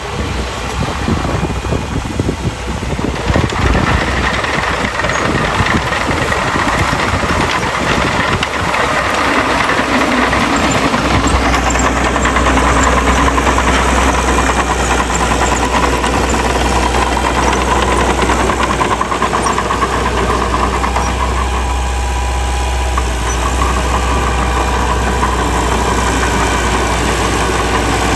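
Heavy earthmoving machine's diesel engine running loud and steady, settling into a deep even hum about a third of the way in.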